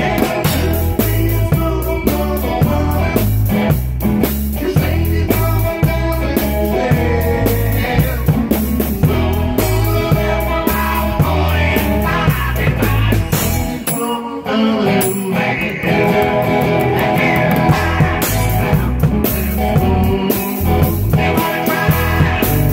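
A small band playing blues-rock live, with a drum kit, acoustic and electric guitars, and a steady pulsing bass line. The bass and drums drop out briefly about two-thirds of the way through, then come back in.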